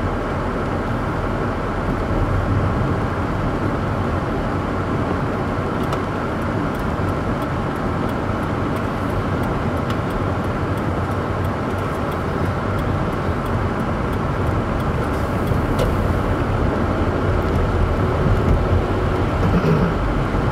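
Steady road noise from inside a moving car on a rain-wet road: tyres on wet pavement and the engine, with no break.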